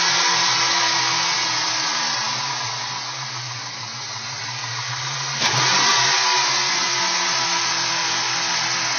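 2002 Ford Mustang's 3.8-litre V6 with a Windstar intake manifold, idling with a steady hiss over the engine note; the engine has a vacuum leak. A single sharp knock about five and a half seconds in.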